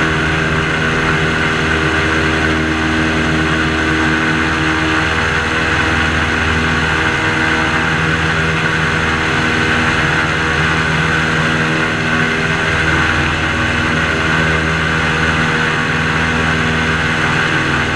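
Airboat engine and propeller running steadily at cruising speed, a loud unbroken drone.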